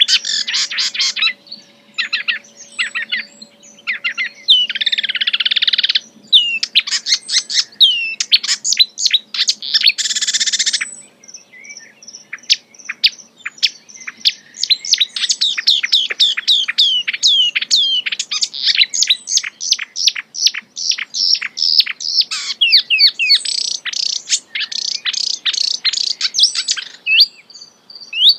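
A wild songbird singing a fast, varied song of rapid chirps and short downswept notes. It breaks into a harsh buzzy rattle twice, about five and ten seconds in.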